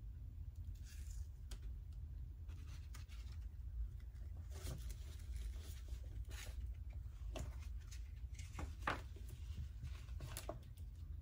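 Scattered soft rustles and scrapes from disposable-gloved hands tilting and handling a stretched canvas over a steady low hum.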